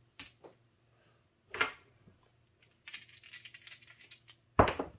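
Casino chips and a pair of dice clicking on a felt craps table as the dice are thrown. A loud knock comes about a second and a half in, then a quick run of small rattling clicks, then another loud knock near the end.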